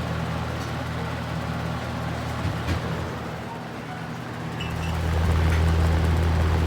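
Vintage Holmes box fan running on its high setting: a steady low hum of the motor and rushing air, swelling louder about five seconds in.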